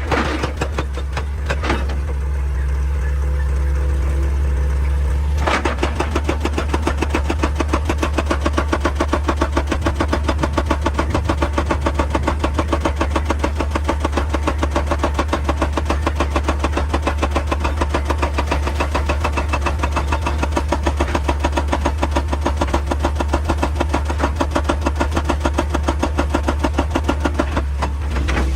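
Excavator's diesel engine running steadily. About five seconds in, a fast, even run of knocks starts and keeps going, several a second.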